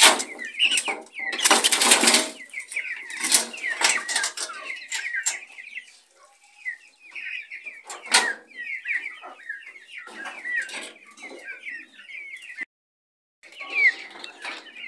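Chickens clucking and calling, with many short overlapping calls and bursts of rustling noise among them. The sound cuts out briefly near the end.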